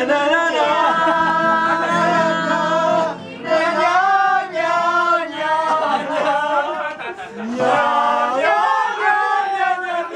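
Several men singing together to a strummed acoustic guitar, holding long wavering notes, with short pauses between phrases about three and seven seconds in.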